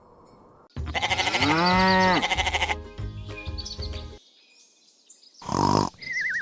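Comic sound effects over music: a loud, quavering bleat-like call that rises and then falls in pitch for about two seconds, then a few short plinked notes. Near the end comes a brief loud burst and a wobbling tone that falls.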